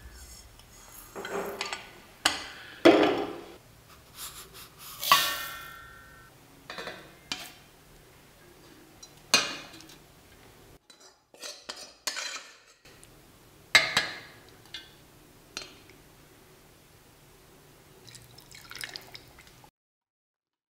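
Stainless-steel kitchenware clinking and scraping: roasted sesame seeds are poured and tapped out of a steel pan into a steel grinder jar, then a spoon stirs and scrapes thick, oily pickle against a steel container. The clinks come one at a time, and one about five seconds in rings on for about a second.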